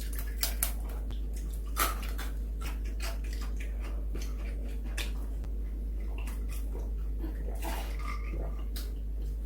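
Eating sounds at a table: scattered short crunches, clicks and mouth smacking from chewing fried chicken and handling it, over a steady low electrical hum.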